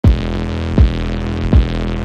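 Electronic background music: a deep kick drum that drops in pitch hits three times, about three-quarters of a second apart, over held notes.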